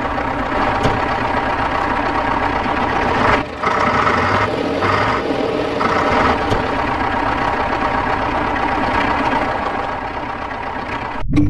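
A miniature tractor's engine noise running steadily, with a short break about three and a half seconds in. It stops just before the end, where music takes over.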